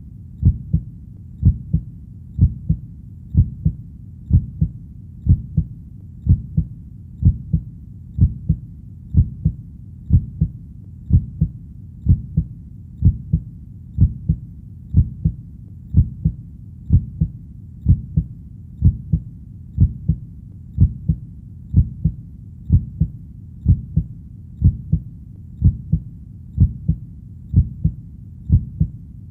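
Heartbeat: a steady, low double thump (lub-dub) repeating about once a second at an even pace.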